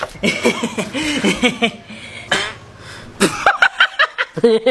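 A young man's wordless voice sounds, then hearty laughter in rapid bursts during the last second and a half.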